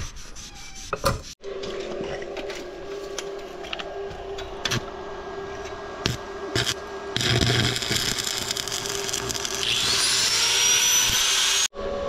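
Stick arc welding rebar onto a steel frame with a small inverter welder: the arc crackles and sizzles over a steady hum, becoming a loud continuous hiss for the last few seconds. Before that, about the first second and a half is a cloth rubbing a wooden board.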